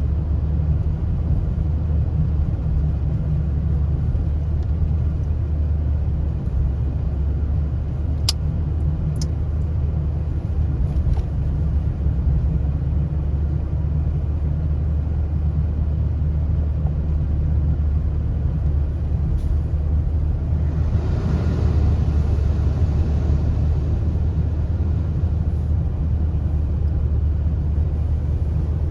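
Steady low rumble of a car driving, with road noise swelling briefly about two-thirds of the way through.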